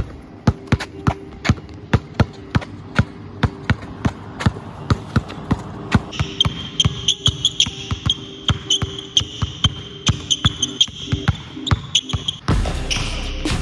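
Basketball dribbled hard and fast, sharp rhythmic bounces about three a second, on an outdoor asphalt court; near the end the bouncing continues on a hardwood gym floor.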